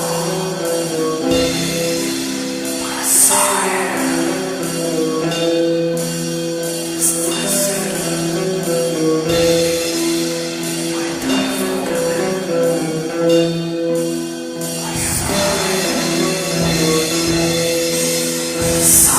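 Slow metal song: sustained, slowly repeating melodic notes over a steady chord, with a few cymbal crashes.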